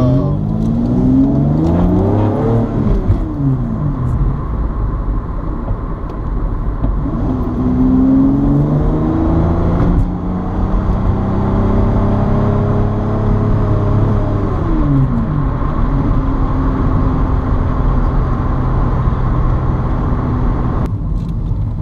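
Toyota MR2's swapped-in 2GR-FE 3.5-litre V6, heard from inside the cabin while driving. The engine revs up under acceleration, drops, revs up again and holds, then falls to a steady lower running about two-thirds of the way through.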